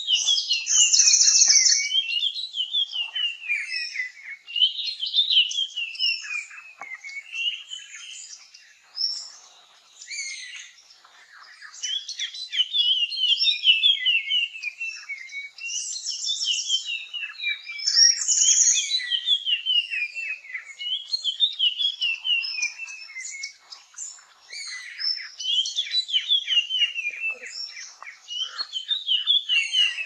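Puff-throated babblers calling: repeated descending runs of quick, high notes, roughly one run every two seconds, with a few higher, shriller bursts mixed in.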